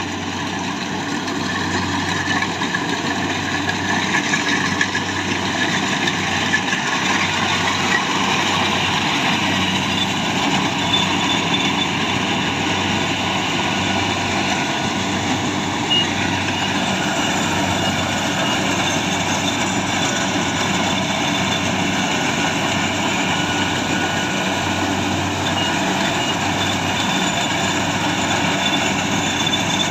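Rice combine harvester running steadily at work, its engine hum under a dense, even mechanical noise.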